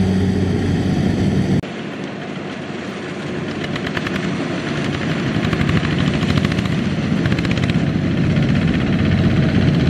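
Single-cylinder diesel engine of a two-wheel walking tractor running steadily, with an abrupt drop in level about one and a half seconds in; it then runs under load pulling a trailer of rice sacks, growing gradually louder.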